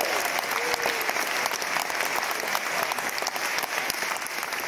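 Audience clapping steadily, slowly easing off, with a voice calling out briefly in the first second.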